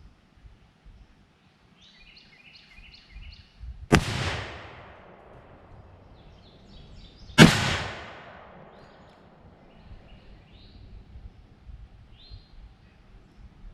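Two rifle shots about three and a half seconds apart, each a sharp crack followed by an echo rolling away across open country. Birds chirp faintly between the shots.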